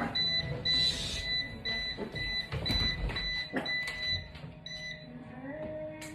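Hoverboard sounding rapid, high-pitched warning beeps, two to three a second, which stop a little over four and a half seconds in. This is the alarm it gives when the board is not level, as the people take it. A few knocks can be heard among the beeps.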